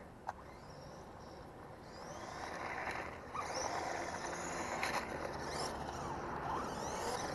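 GPTOYS S926 1:12-scale 4WD RC truck driving off, its electric motor and gears whining up and down in pitch with the rush of tyres over the ground. The sound picks up about two seconds in.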